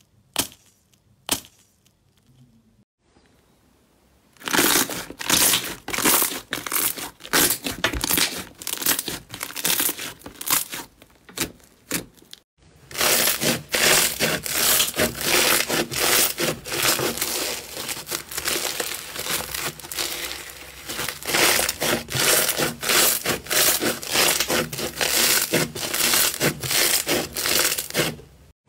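Pink floam slime, full of tiny foam beads, kneaded and pressed by hand, giving a dense, continuous crackling with many sharp little pops. A few isolated sharp clicks come in the first two seconds, and the crackling breaks off briefly about halfway through.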